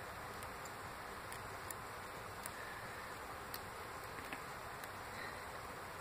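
Faint, irregular metal clicks of a lock pick working the pins of a Master Lock 140 padlock, a handful of small ticks over a steady hiss.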